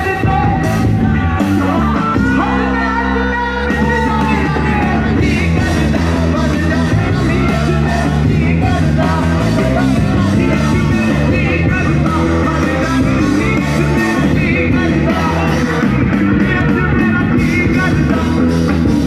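A live rock band playing loud: electric guitars and drums with singing, and shouts from the crowd close by.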